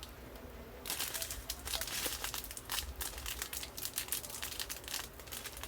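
Small plastic bags of diamond-painting drills crinkling as they are handled and turned over, starting about a second in.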